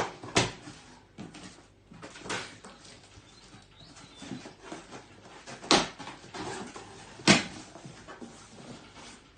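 A cardboard box being opened and its packaging handled: irregular rustling with sharp knocks about half a second in, just before six seconds, and again near seven and a half seconds.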